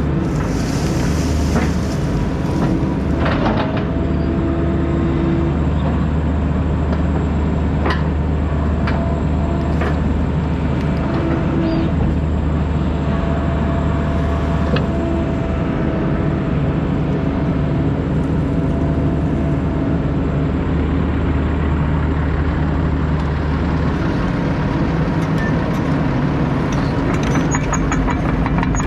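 Excavator's diesel engine running steadily under work, with higher-pitched tones coming and going and a few sharp clanks along the way.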